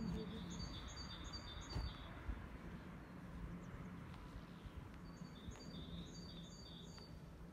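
A small songbird singing two short phrases of about five quick high notes each, one near the start and one about five seconds in, over a low outdoor background rumble.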